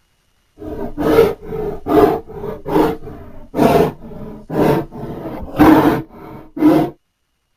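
Made-up monster sound effect: a run of rough, growling roars, about seven loud pulses roughly a second apart with lower growls between them, stopping abruptly near the end.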